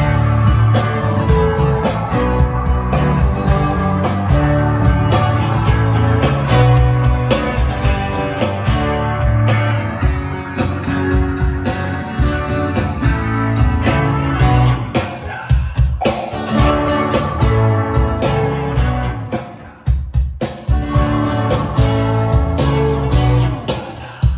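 Guitar music playing loud from a CD over a home hi-fi system's loudspeakers.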